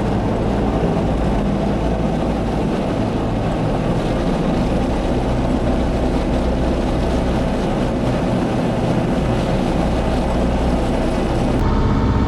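Engine of a heavy farm vehicle running steadily, a continuous rumbling drone; the sound changes abruptly near the end.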